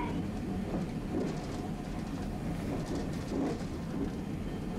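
Steady low rumble of a streetcar's interior.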